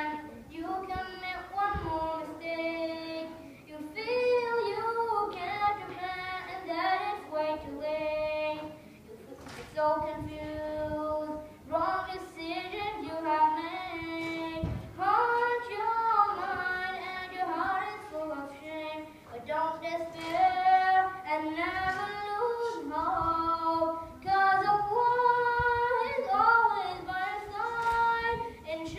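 A boy singing a nasheed solo, his voice alone with no instruments, in long phrases of gliding, ornamented notes with short pauses between them.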